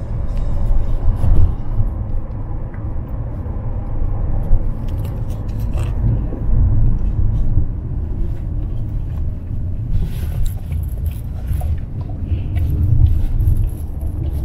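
Steady low road rumble of a car in motion, heard from inside the cabin. Light clicks and rustles come on top of it, more of them in the last few seconds.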